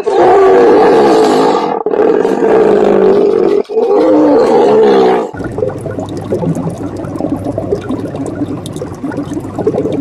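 Hippopotamus bellowing in three long, loud calls with brief breaks between them. About five seconds in, the calls give way to a much quieter crackling hiss with a low steady hum.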